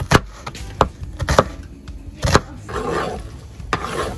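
Kitchen knife chopping scallions and onion on a wooden cutting board: several sharp, irregular knocks of the blade on the wood. In the second half, the chopped pieces are scraped across the board with the blade.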